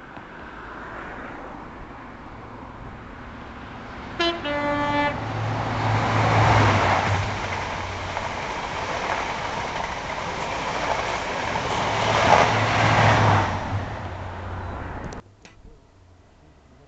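An express passenger train sounds a two-tone horn briefly, a higher note then a lower one. It then passes at speed with a loud rush of wheel and rail noise that swells twice, and the sound cuts off abruptly near the end.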